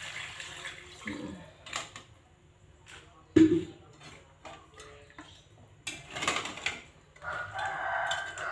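Water poured from a plastic jug into a wok of duck pieces, followed by a metal spatula scraping and knocking against the wok as the meat is stirred, with one loud knock about three and a half seconds in.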